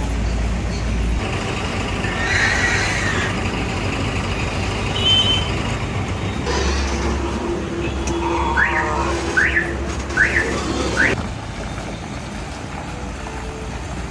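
Vehicle engine noise that changes at each cut, with four short rising squeals, less than a second apart, in the second half.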